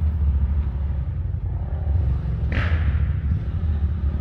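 Side-by-side UTV engine running with a steady low rumble, with one brief sharp noise about two and a half seconds in.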